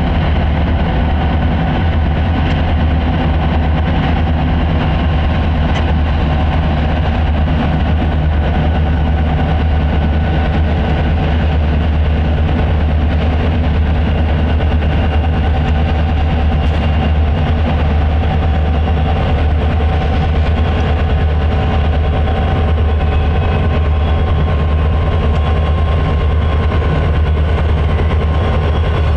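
Four diesel locomotives working at the head of a freight train, their engines running with a steady heavy drone and a constant hum.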